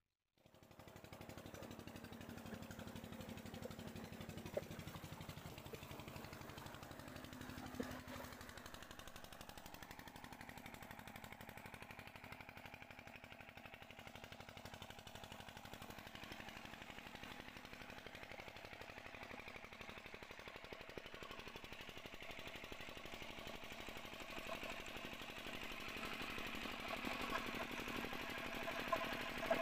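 Single-cylinder diesel engine driving a tube-well pump by belt, running steadily with a fast, even chug that grows louder near the end.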